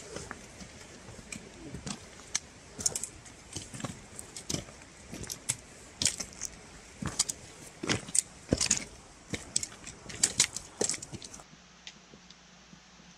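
Hiking boots and trekking-pole tips on a rocky, gravelly trail: irregular sharp clicks and crunches, several a second at times, stopping near the end.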